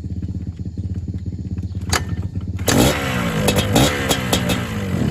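Yamaha Blaster 200's two-stroke single-cylinder engine running steadily, then revved about two and a half seconds in, its pitch rising and falling, with clattering clicks.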